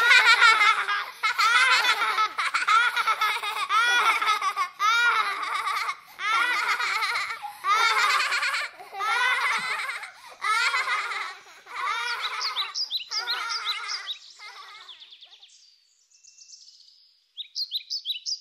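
High-pitched cartoon-voiced laughter in repeated bouts, fading out about fifteen seconds in; birds chirping near the end.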